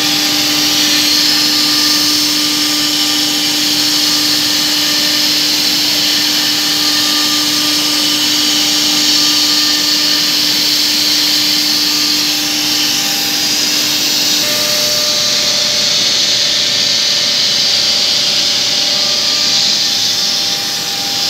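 Holztek CNC-2500A horizontal CNC boring machine running: a steady rushing hiss with several steady whining tones from its drilling heads. A low hum stops and a higher tone takes over about 14 seconds in.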